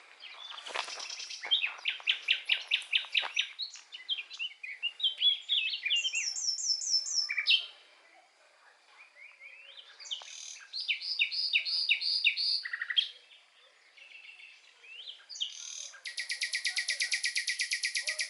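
Songbirds singing in separate phrases of quick repeated notes, some sweeping downward, with short pauses between. Near the end comes a fast, even, high trill.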